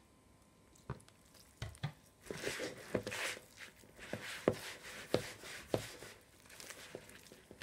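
A hand kneading soft, wet yeasted dough in a plastic bowl: sticky squelching and pressing, with a sharp thump about every half-second to second. It starts after a few light knocks about two seconds in.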